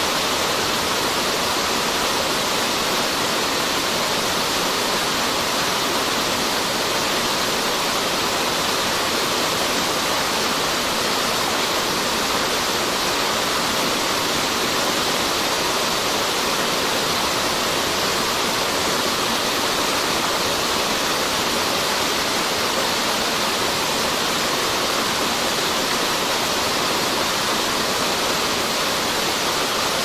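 Crabs frying in masala in a wide pan, giving a steady, even sizzling hiss.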